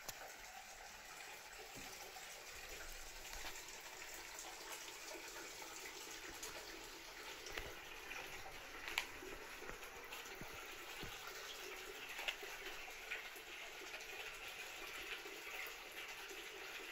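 Hot spring water running steadily into a stone-edged open-air bath, a faint continuous trickle with a few light ticks and drips.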